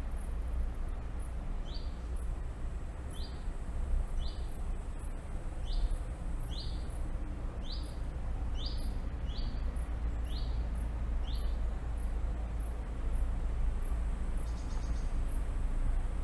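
A bird repeating a short, high, rising chirp about once a second, about ten times before falling silent, over a steady low rumble.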